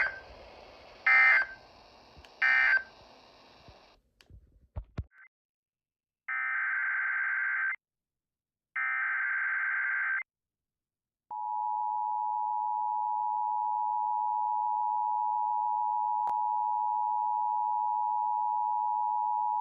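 Emergency Alert System data bursts: three short screeching bursts mark the end of the previous message. After a pause, two longer burst tones of the next alert's header follow. About 11 seconds in, a steady two-tone attention signal starts and holds.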